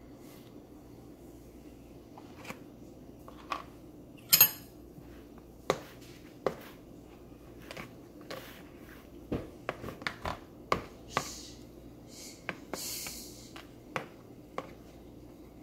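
A metal spoon stirring and scraping thick oatmeal in a plastic meal tray: a scatter of light clicks and taps as it knocks the tray's sides. About four seconds in comes a louder, sharp crackle of plastic as the tray's lid comes off, and near the end a brief rustle.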